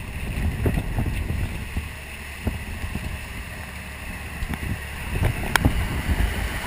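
Wind buffeting the microphone of a camera on a boat's side deck in a rough sea: an unsteady low rumble over the hiss of wind and water, with a few sharp knocks, the clearest about two and a half and five and a half seconds in.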